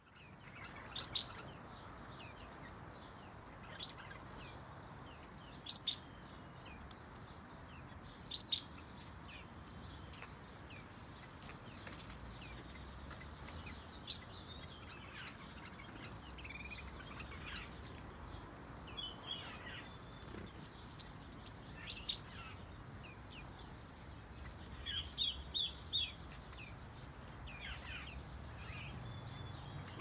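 Several small songbirds in a mixed finch and softbill aviary chirping and calling: many short, high chirps scattered throughout, with a quick run of repeated notes near the end, over a faint low rumble.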